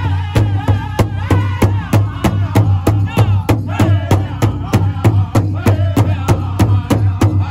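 A group of men strike a large hide-headed powwow drum in unison with padded beaters, keeping a fast, steady beat. They sing together in high, wavering voices over the drum.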